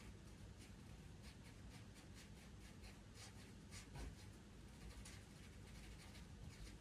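Pastel pencil scratching faintly on pastel paper in short, quick strokes, a few each second.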